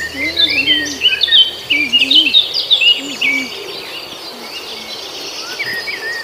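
Birds chirping and twittering in quick rising and falling calls, busiest in the first three seconds or so and thinning out after, over a thin steady insect-like drone.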